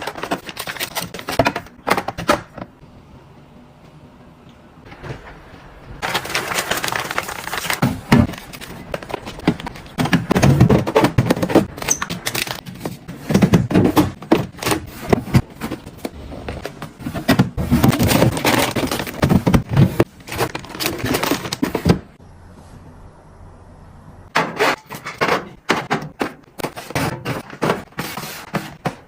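Food containers and packaging being handled and set down while restocking a fridge: a run of clicks, knocks, taps and scrapes, denser in the middle, with two short quieter pauses.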